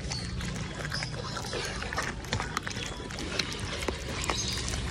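A dog chewing a raw whole chicken held in a hand: wet mouth sounds with irregular crunching clicks as it bites through the carcass.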